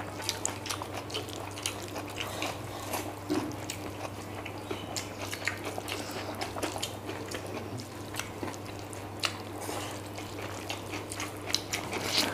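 Eating by hand: fingers squishing rice into chilli chicken gravy on a plate, with chewing and wet lip smacks, heard as many short irregular clicks over a steady low hum.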